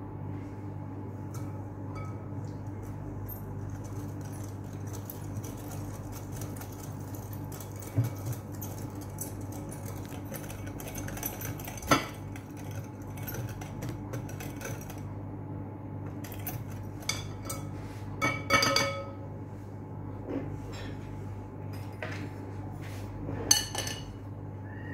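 Wire whisk beating a milk mixture in a cut-glass bowl: a rapid scraping swish, with a few sharp clinks of metal and glass against the bowl, over a steady low hum.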